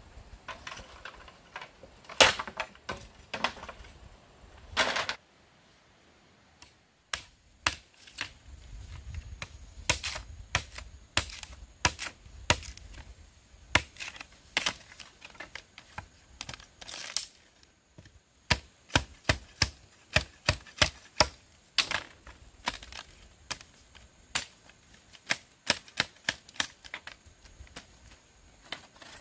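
Machete blade striking a green bamboo pole in quick repeated chops, scoring and cracking the culm so it can be split open into flat strips; the blows come in an even run of about two a second in the second half. A few louder, scattered knocks come in the first five seconds.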